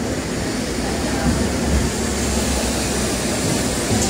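Double-decker electric tram running along its rails, a steady low rumble heard from inside the upper deck.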